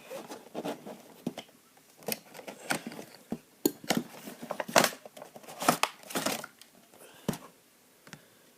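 Toy box packaging being opened by hand: irregular crinkling, tearing and clicking of cardboard and plastic, busiest in the middle and stopping about a second before the end.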